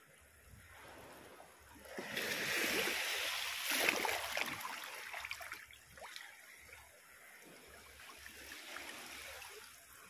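Heavy monsoon surf breaking and washing over a rocky shore: a wave crashes about two seconds in and its wash fades away, with a smaller surge near the end.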